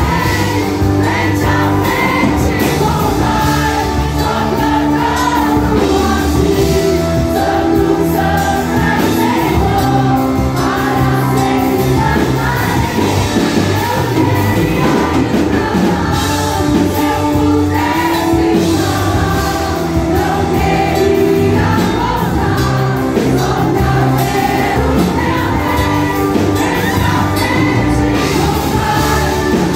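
Youth choir of mostly young women singing a Portuguese-language gospel worship song through a PA system, with a live band including drums accompanying them. The sound is loud and steady, with long held sung notes over a sustained bass line.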